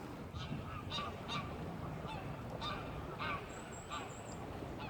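Repeated short bird calls, about two a second, with a thin high whistle from another bird near the middle.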